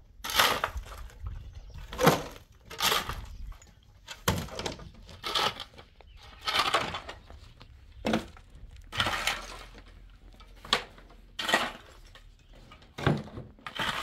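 A string of sharp knocks and clinks of hard objects striking, about one a second at uneven spacing, some with a short rattle or scrape after the hit.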